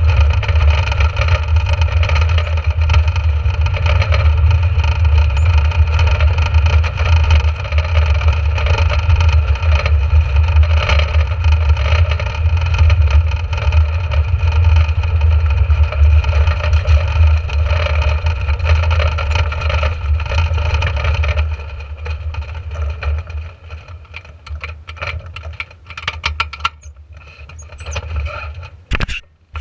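A dragster's engine running steadily at low speed as the car rolls slowly; about 21 seconds in it drops to a much quieter level, and a few knocks and rattles follow near the end.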